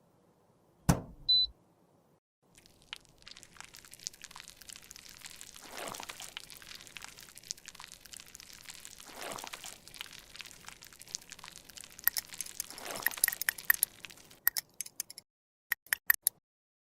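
Makeup being worked by hand: a sharp knock about a second in, then a long stretch of fine crackling, crunching and scraping with a few louder swells, ending in several sharp clicks.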